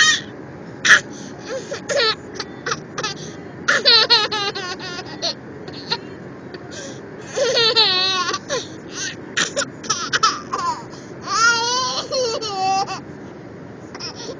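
A toddler laughing in high, wavering fits, broken by short sharp hiccups.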